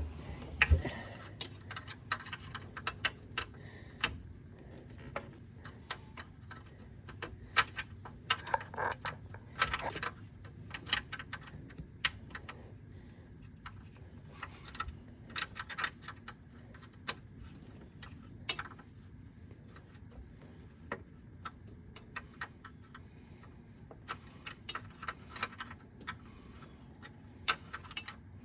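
Irregular metallic clicks and clinks of hand tools and metal fittings as the old accelerator cable on a golf cart is worked loose.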